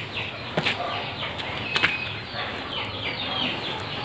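Many birds chirping at once: a busy, overlapping run of short, falling chirps. Sharp clicks come about half a second and just under two seconds in.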